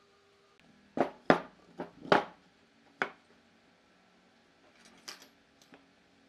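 Sharp knocks and clatters of objects being handled and set down: five in quick succession, starting about a second in, then two fainter ones near the end.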